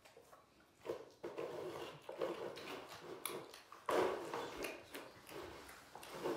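Young tiger and white lion cubs growling over meat while feeding. The rough growls come in irregular bouts from about a second in, loudest at about four seconds, with scattered clicks among them.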